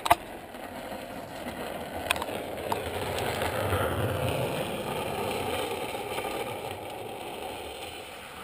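Drift trike's rear wheels rolling and sliding on asphalt: a rough rolling noise that grows louder as it passes about four seconds in, then fades as it rides away. A few sharp clicks near the start.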